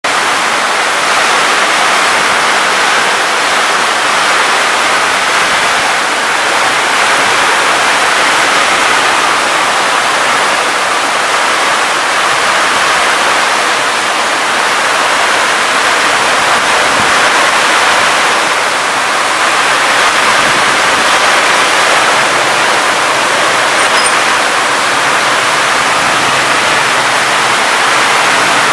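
Heavy rain pouring down on roofs and pavement: a loud, steady hiss, with water streaming off the roof edges.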